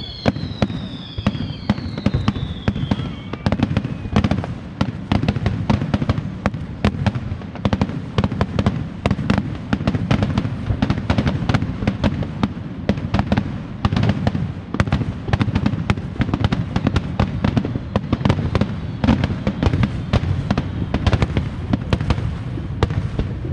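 Fireworks display in a dense, continuous barrage: rapid crackling bursts many times a second over a low booming rumble, with a falling whistle fading out in the first few seconds.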